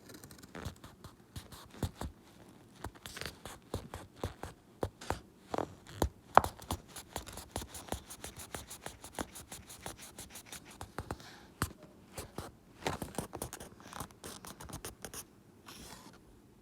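Paper being handled close up: an irregular run of scratches, rubs, rustles and light taps as the pages and signature of a book are felt and handled.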